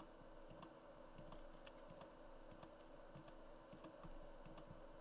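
Faint, irregular clicks of a computer mouse button, several a second, over a low steady hum.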